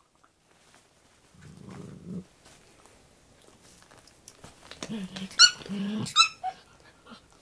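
Shiba Inu mother dog growling low at puppies to warn them off the dental chew she is holding: one short growl, then a longer one a few seconds later, broken by two sharp, high yelps.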